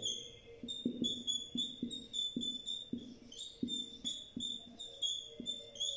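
Felt-tip marker squeaking on a whiteboard as handwriting is written: a run of short high squeaks with light taps, two to three strokes a second.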